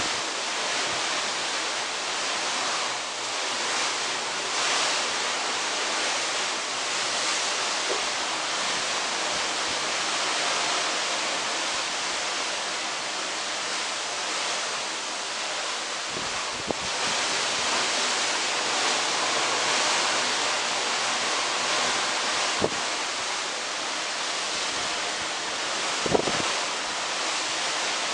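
Steady rush of sea and wind past a moving cruise ship, with wind buffeting the microphone. There are three short knocks partway through.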